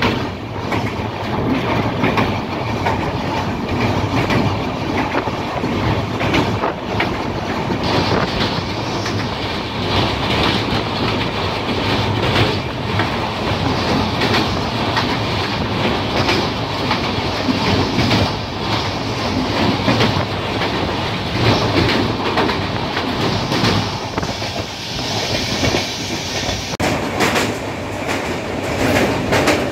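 Indian Railways express passenger train running at speed, with steady wheel-on-rail rumble and rapid clickety-clack over the rail joints.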